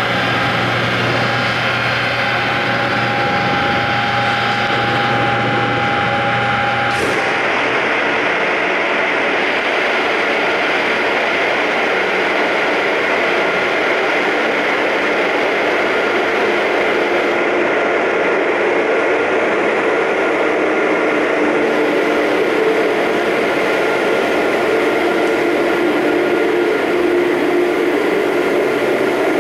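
FPEC vacuum paddle blender running on test: a steady machinery drone from its drive motor and vacuum pump while the trough is held under vacuum. The tone of the drone changes abruptly about seven seconds in.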